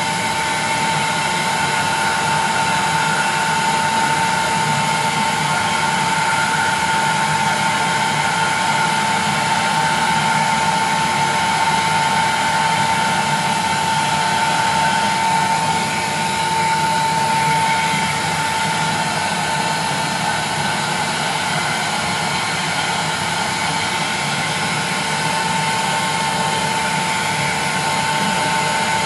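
Handheld electric heat gun blowing steadily, a constant rush of hot air with a steady whine from its fan.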